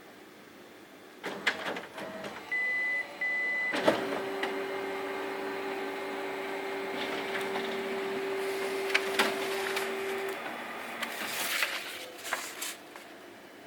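Ricoh IM C2000 colour laser multifunction printer running a print job sent from a phone. A few clicks and a short two-part beep come first, then its motors start up with a steady hum and mechanical clatter for about six seconds, tapering off near the end.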